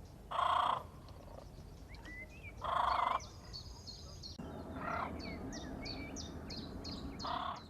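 Birds calling: four loud short calls, each about half a second long and spaced about two seconds apart, over many faint, quick high chirps.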